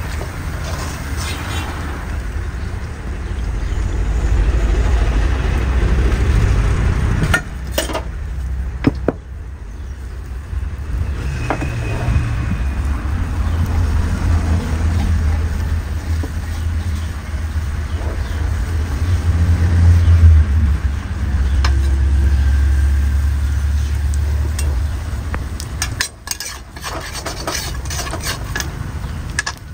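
Cooking in an iron wok: oil sizzling and a metal spatula scraping and clicking against the pan, busiest near the end, over a steady low rumble.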